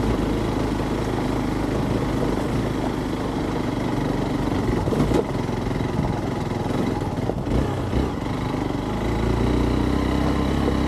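Hero XPulse 200's single-cylinder four-stroke engine running as the motorcycle rides over rough ground, with a few knocks midway and the engine louder near the end.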